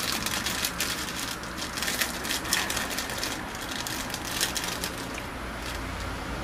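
Crunching of a hard vanilla white-chocolate hazelnut biscotti being bitten and chewed: a run of crisp crackles that thins out after about three seconds.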